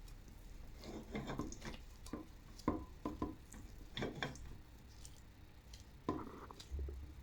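Irregular soft knocks, clicks and scrapes of hands and utensils working food during cooking preparation, with a quieter lull a little past the middle.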